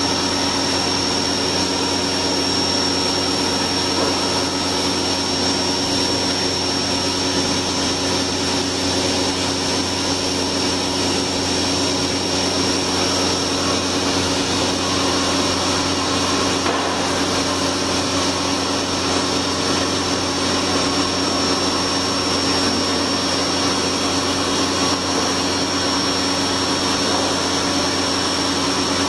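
CNC machining center's spindle running steadily at high speed as a small end mill cuts the helical thread of a metal worm shaft held on a fourth-axis rotary table: a steady mechanical whine with a high, constant tone.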